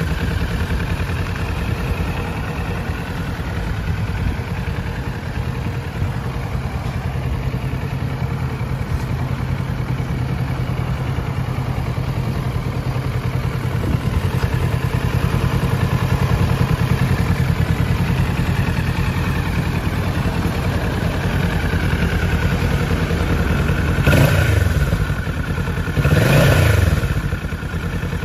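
Kawasaki Ninja 650's parallel-twin engine idling steadily through its stock exhaust, then revved in two short blips near the end, the pitch rising and falling back each time.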